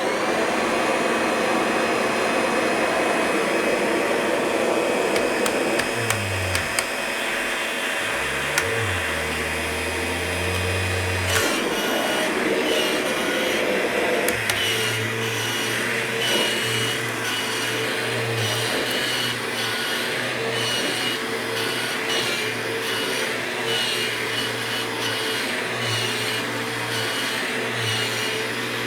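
Kirby G6 upright vacuum cleaner switched on, its motor spinning up at once and then running steadily with a high whine. A single click sounds about eleven seconds in.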